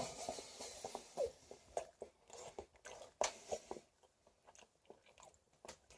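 Faint chewing of a mouthful of lasagna: a few soft mouth clicks and smacks over the first three and a half seconds, then near silence.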